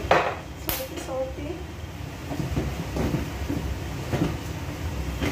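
Two sharp knocks in the first second, then stir-frying of broccoli and bell pepper in a wok on a gas burner, with a spatula clinking now and then against the pan.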